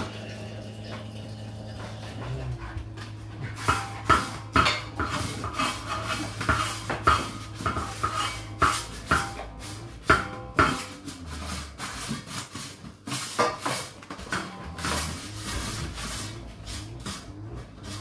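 Whirlpool dishwasher running a rinse: the circulation pump hums steadily while water sprays inside the tub in irregular splashes and knocks against the racks and door. The hum stops about two-thirds of the way through.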